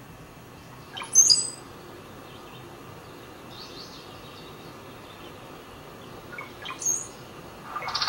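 Brown-headed cowbird song, heard twice from a recording: a few soft low notes followed by thin, very high whistled notes that step down in pitch. The first comes about a second in, the second near the end.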